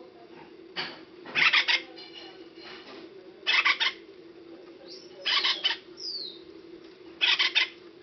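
Acorn woodpecker giving harsh, buzzy, stuttering calls, about five short ones spread a second or two apart, one with a quick falling squeal after it. A steady low hum runs underneath.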